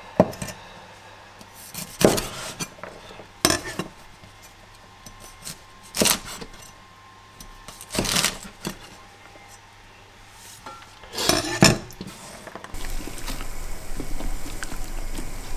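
Heavy chef's knife chopping green beans on a wooden chopping board: single sharp chops about every two seconds, the last a quick run of several. Near the end, a steady low rumble with a few light clicks of a metal ladle stirring vegetable stew in a steel pan.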